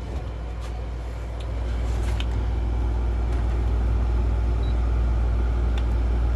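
Window air conditioner running close up: a steady low hum with fan airflow noise, growing louder about two seconds in as the just-switched-on unit comes up to speed, then holding steady.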